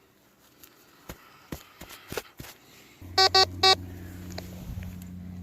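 A few faint clicks and knocks, then a steady low hum starts abruptly about three seconds in, joined straight away by three short, loud electronic beeps.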